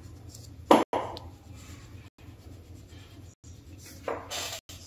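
Sheet of paper handled and slid over a cloth-covered table: a short sharp burst about three-quarters of a second in, and a longer rustle near the end as the sheet is moved. A steady low hum runs underneath, broken by brief dropouts about every second and a quarter.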